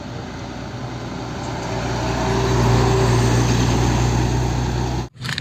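A vehicle engine drone with a low steady hum, growing louder over the first three seconds, holding, then cutting off abruptly about five seconds in.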